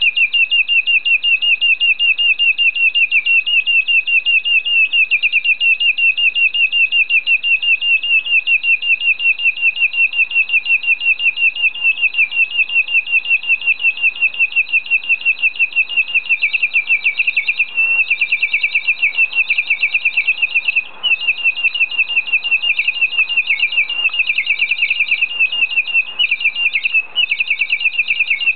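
A water-filled 'nightingale' bird whistle blown continuously, giving a steady, high, warbling trill that pulses about six or seven times a second. It breaks off briefly twice in the second half.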